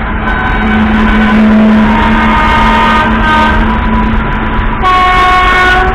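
Container freight train hauled by an Indian Railways electric locomotive rolling past, with a steady rumble and hum. Train horns sound over it: a multi-tone horn for about three seconds from shortly after the start, then a second, clear blast of about a second near the end.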